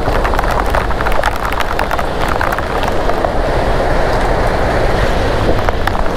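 Heavy rain downpour: a dense, steady hiss full of sharp individual drop hits, over a low rumble.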